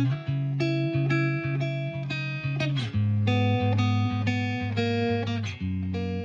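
Background music on plucked guitar: a run of picked notes over a steady low bass, with the chord changing about halfway through.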